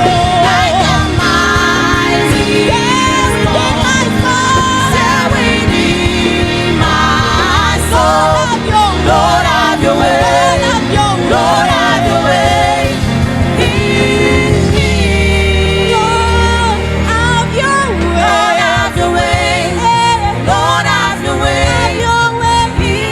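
Live gospel worship music: singing over a steady band accompaniment with a sustained bass.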